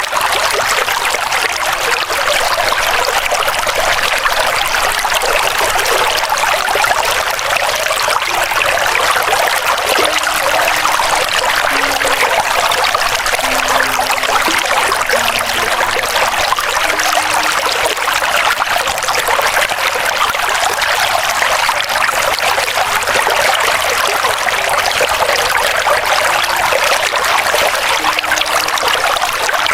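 River water running over stones: a steady rushing and trickling that holds at the same level throughout.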